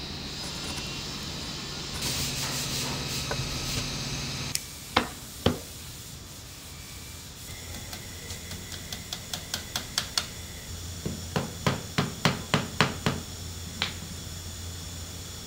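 Hammer tapping on wood as dowelled joints are knocked together: two sharp blows, then a run of light taps that speed up, then a series of heavier blows.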